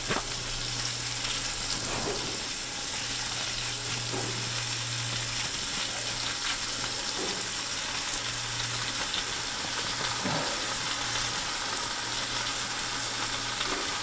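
Vegetables sizzling in a pan on a portable camp stove, a steady hiss over a low hum, with a few light knife cuts as an onion is sliced over the pot.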